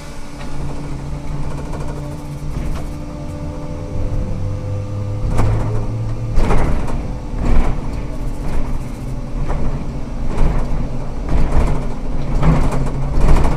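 Ikarus 280T trolleybus under way: a low hum from its electric drive, then a series of irregular knocks and rattles from about five seconds in.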